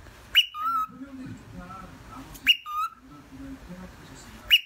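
Cockatiel whistling the same two-note call three times, about two seconds apart: a quick upward sweep, then a lower note.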